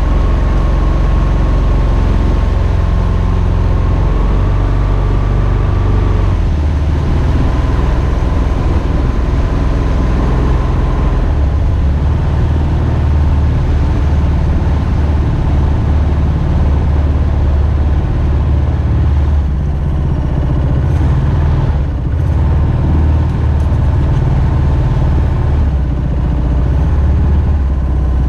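Single-cylinder Subaru EX21 engine of a Mokai jet boat running steadily with a low drone. The note shifts about six seconds in, and a faint high whine fades out by about eleven seconds.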